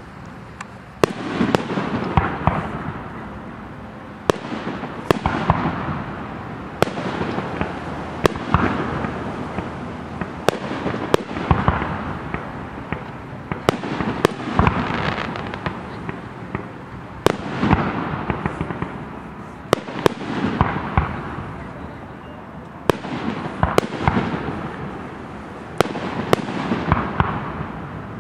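Fireworks display: aerial shells bursting with sharp bangs every one to three seconds, each followed by a fading rumble.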